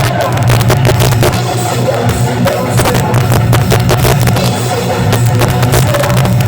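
A rock band playing, with the drum kit hitting busily over a steady bass line and electric guitar.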